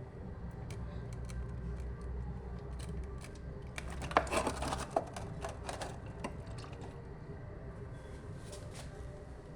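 Scattered light clicks and a short burst of clattering about four to five seconds in, from handling tools and the oil catch container during a motorcycle engine oil drain. A low steady hum runs underneath and stops about five seconds in.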